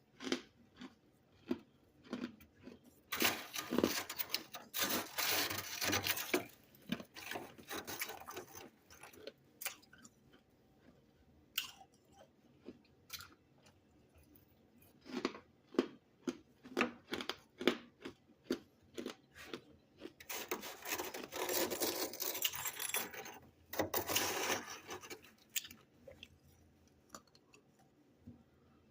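Close-up chewing and crunching of freezer frost and ice chunks: irregular crackles and crunches, with two longer stretches of dense crunching.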